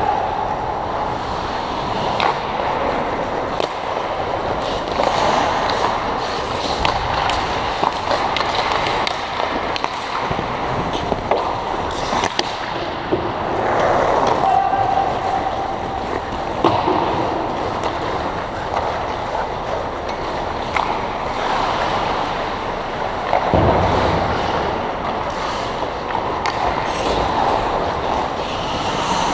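Ice hockey play on an indoor rink: skate blades scraping and carving on the ice under a steady rushing noise, with scattered sharp clacks of sticks and puck.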